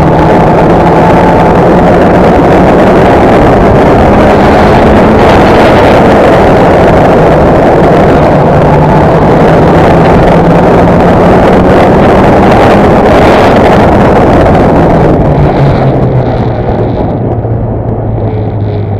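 Race car engine heard from onboard, running hard at high revs with a steady engine note. Near the end the note drops in pitch and the sound gets quieter as the car eases off.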